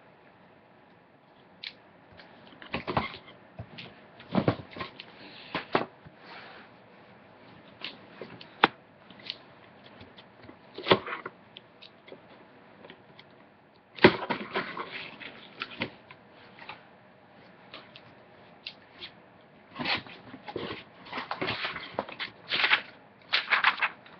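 Cardboard shipping box being handled and opened by hand: irregular scrapes, knocks and rustles of cardboard, with paper crinkling near the end.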